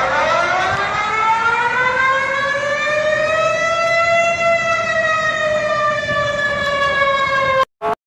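Civil defence warning siren, the alarm shown for Malaysia, sounding one long steady tone that slowly rises in pitch for about four seconds and then slowly falls. It cuts off suddenly near the end, with a short blip just after.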